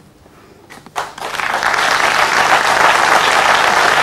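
Studio audience applauding, breaking out about a second in and quickly swelling to steady, full applause.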